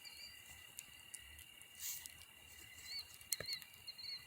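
Faint outdoor night ambience: a steady high-pitched drone with scattered short chirps and a few light clicks.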